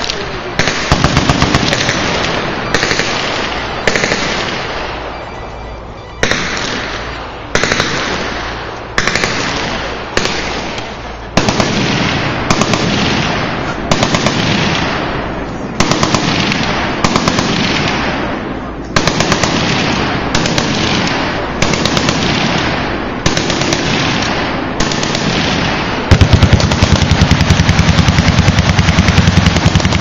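Several machine guns firing bursts of full-automatic fire along a firing line, one burst after another every second or two, each ringing off as it dies away. Near the end a nearby gun fires a longer, louder unbroken burst.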